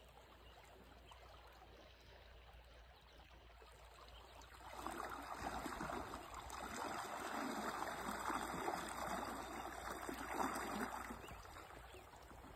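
Water sloshing and swishing around a wader's legs as he moves through a shallow creek. It starts about five seconds in, runs unevenly for several seconds and fades out near the end.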